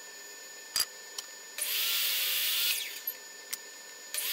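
JET miter saw cutting curly maple to length: two loud bursts of the blade spinning up and cutting through the board, about a second each, one in the middle and one starting near the end. A few sharp clicks and knocks of handling fall between them.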